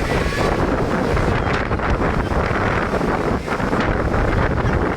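Strong gusting wind buffeting the microphone, a dense steady rush with no clear tones.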